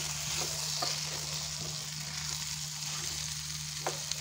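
Potato and brinjal pieces sizzling in a steel frying pan on low heat as they crisp, with a wooden spatula stirring and scraping through them a few times. A steady low hum runs underneath.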